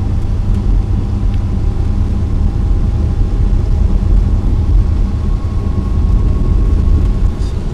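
Steady low rumble of a vehicle's engine and tyres on a slushy highway, heard from inside the cabin, with a faint steady whine above it.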